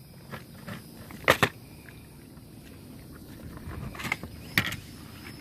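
A few sharp clicks and knocks: two close together about a second in, and two more near the end, over a faint steady background.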